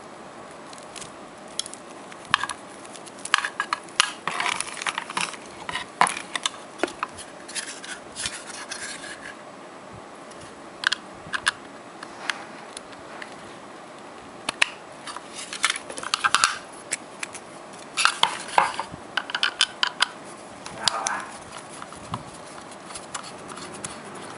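Handling sounds of hard plastic: scattered sharp clicks and light scrapes, in clusters with quiet gaps, as a USB cable is uncoiled and its connector fitted into the TP-Link TL-WN7200ND USB wireless adapter.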